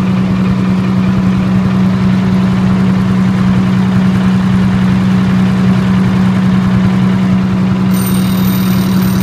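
Diesel generator set running steadily at constant speed on diesel fuel alone, a loud even engine hum with a strong low tone. A faint high ringing comes in near the end.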